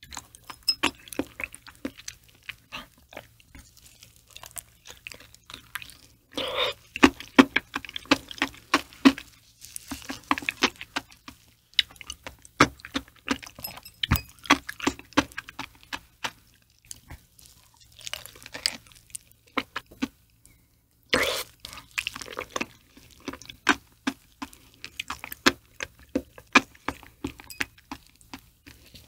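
Close-miked wet chewing and squishing of soft raw liver, with many small mouth clicks and lip smacks; it comes in louder spells twice.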